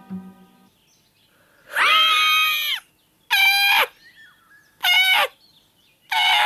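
A cartoon crow's voice cawing four loud, drawn-out caws in a crow's laugh. The first caw is about a second long and the rest are shorter. A piano-like musical phrase fades out just before the first caw.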